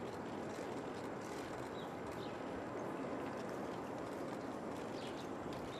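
Steady outdoor background noise with faint scattered clicks.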